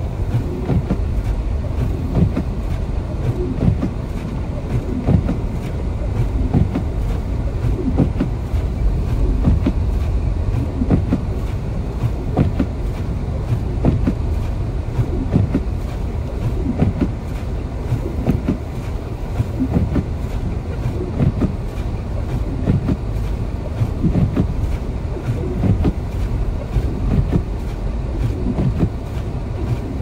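Road noise inside a car driving over deep, rutted snow: a steady low rumble with frequent irregular thumps and knocks as the tyres and suspension ride over the packed snow.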